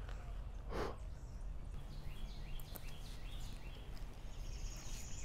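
Quiet wooded outdoor ambience with a bird calling a run of short, high, falling notes from about two seconds in, and one soft brief rustle just under a second in.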